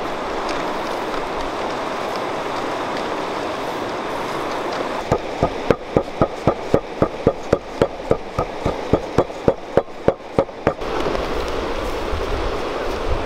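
A smooth stone pounding a watery tomato mixture in a steel bowl: a run of regular wet, splashy strokes, about three a second, starting about five seconds in and stopping near the end. Steady wind noise on the microphone underneath, with low wind rumble near the end.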